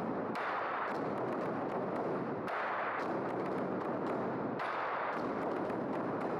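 Large Chinese drums beaten in a fast, continuous roll of many overlapping strikes, swelling in waves about every two seconds.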